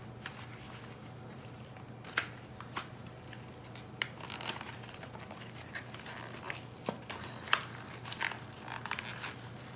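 Plastic blister-pack toy packaging being opened by hand: irregular crinkling, tearing and sharp plastic clicks, the loudest a little past two seconds in and about seven and a half seconds in.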